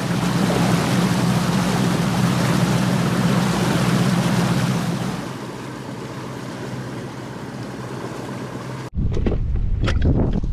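Bass boat running across the water: the outboard motor's steady hum under the rush of wind and water, the hum dropping away about five seconds in. Near the end, after an abrupt change, wind buffets the microphone with a few light knocks.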